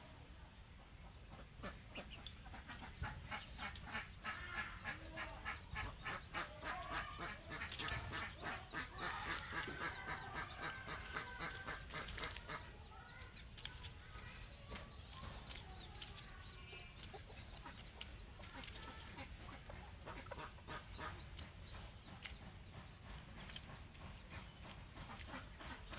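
Domestic chickens clucking, a fast run of clucks through the first half, then softer, scattered calls.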